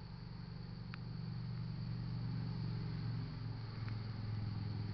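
Low engine rumble growing steadily louder as it approaches.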